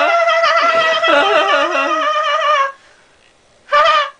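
A voice sings a wordless tune in held notes that step up and down, then stops abruptly about two and a half seconds in. After a near-silent second, one short voiced note comes near the end.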